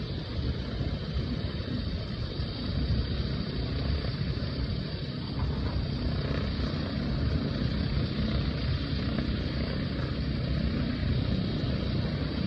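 An airship's engines and propellers running steadily at low power.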